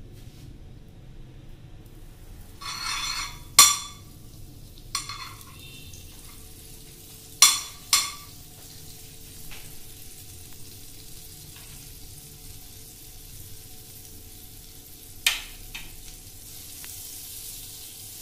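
Half a cube of butter being unwrapped and scraped with a spoon into a hot stainless-steel frying pan. A wrapper rustles briefly about three seconds in, and the spoon clinks sharply against the pan four times. A faint sizzle builds near the end as the butter starts to melt.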